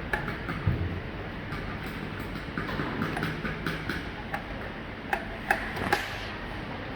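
Light clicks and taps of door lock parts being handled and fitted to the door, with a few sharper knocks about five to six seconds in.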